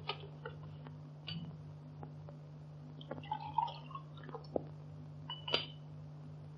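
Light clinks and knocks of glassware being handled on a table, with a brief flurry of small ringing clinks midway and a sharper clink near the end, over the steady low hum of an early sound-film soundtrack.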